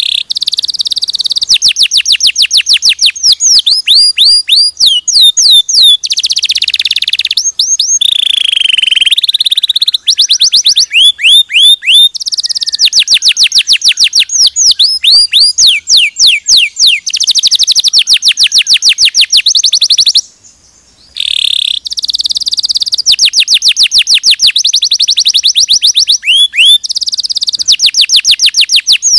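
Domestic canary singing a long, loud song built of rapid trills: fast runs of repeated downward-sweeping whistled notes that change to a new pattern every second or two. The song breaks off briefly about two-thirds of the way through, then carries on.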